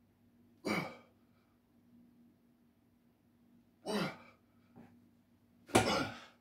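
A man's forceful exhaled grunts of effort while pressing heavy dumbbells overhead. There are three, a few seconds apart, each falling in pitch, and the last is the loudest as the set ends.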